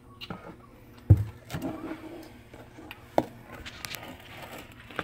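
Handling noises close to the microphone: scattered knocks, taps and rustles, the loudest a heavy thump about a second in and a sharp knock a little after three seconds.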